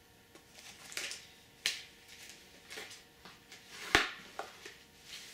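Blu-ray box-set cases being handled: a scatter of short clicks and rustles of plastic disc trays and card packaging, the sharpest click about four seconds in.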